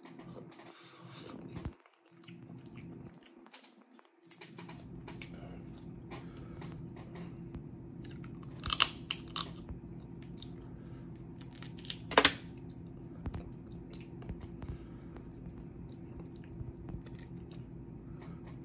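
Close-up chewing and biting of seafood boil, with a few sharp cracks of snow crab shell being broken, the loudest about nine and twelve seconds in.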